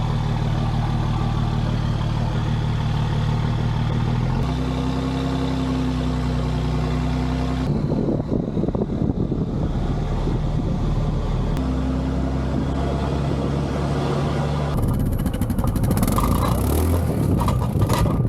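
ATV engine running steadily, with abrupt jumps between stretches of smooth, even running and rougher, noisier running. Wind buffets the microphone over the last few seconds.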